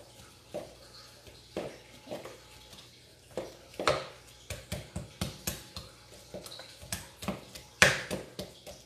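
Pestle mashing avocado in a plastic mixing bowl: a run of irregular soft knocks and squishes, about two a second, the loudest near the end.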